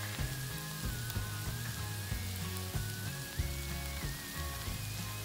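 Sliced onions and curry leaves sizzling in hot oil in a pot, a steady soft hiss, under background music with a bass line and a wavering melody.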